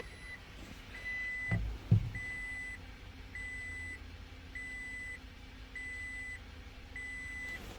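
Repeating electronic beeps, each about half a second long, coming about once every 1.2 seconds. Two low thumps sound about one and a half and two seconds in.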